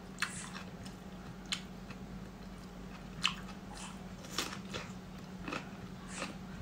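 Bites and close chewing of a raw cucumber: about eight sharp, irregular crunches, the strongest a little past three seconds in. A steady low hum runs underneath.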